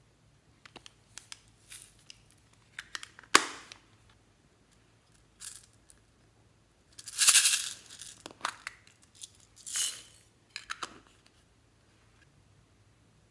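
Small plastic toy cases being handled and emptied into a glass bowl: sharp clicks of plastic lids and latches and short rattling bursts of glitter flakes and beads shaken out, the loudest and longest burst about seven seconds in.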